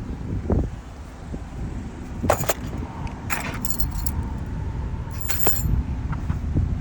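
Metal keys jangling and clinking in hand in several short bursts, over a steady low rumble.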